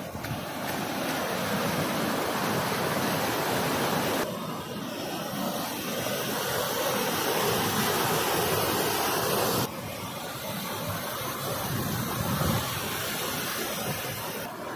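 Rushing water, a dense steady hiss with no distinct tones. It changes abruptly about four seconds in and again about ten seconds in, as if cut between different stretches of water.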